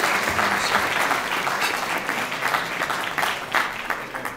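Guests clapping in applause, thinning out and dying away near the end.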